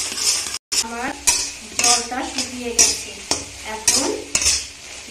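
Flat metal spatula stirring steamed taro (kochu) stems in a steel kadai, scraping against the pan about twice a second over a steady hiss.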